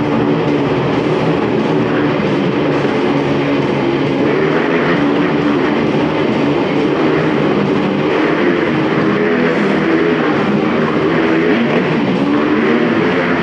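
Several motorcycle engines running hard inside a steel-mesh globe of death, their overlapping pitches rising and falling as the riders circle.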